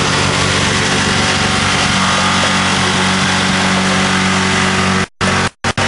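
Ford Thunderbird engine held at wide-open throttle, running steadily at high revs while being deliberately over-revved to destruction; it is already smoking. The sound cuts out abruptly several times near the end.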